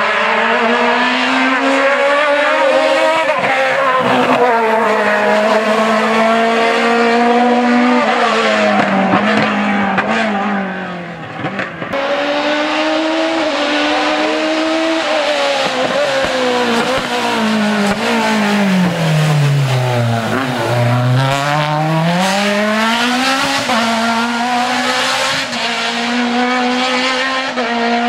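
A hillclimb race car's engine is worked hard, revving up through the gears with quick shifts that drop the pitch each time. Past the middle the revs fall steeply as the car slows for a tight corner, then climb again as it accelerates away.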